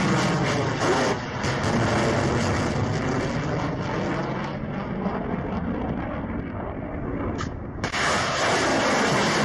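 Roar of missiles launching from Bastion coastal defence system launchers: a steady rushing rumble that dulls somewhat in the middle and comes back sharply, full and bright, near the end as another missile leaves its launcher.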